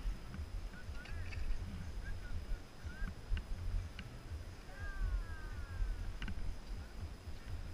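Low rumble of wind buffeting an action camera's microphone and skis sliding over snow. A few faint, short, high chirps, some rising and some falling, come and go throughout.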